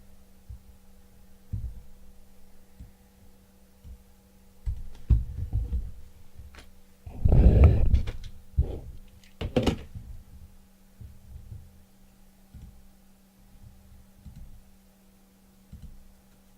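Scattered soft thumps and knocks of things being handled on a table close to the microphone, the loudest a rustling burst about seven seconds in and a sharp knock near ten seconds. A steady low electrical hum runs underneath.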